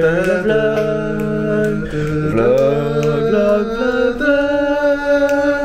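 Wordless singing in long held notes that step from pitch to pitch, with more than one pitch sounding at once, like a sung intro jingle.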